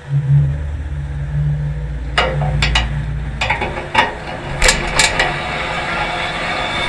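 Rusty old mamachari shopping bicycle clanking and rattling as it sets off: a run of sharp metal knocks over about three seconds, over a steady hiss that builds from about halfway through. Before it moves there is a steady low drone.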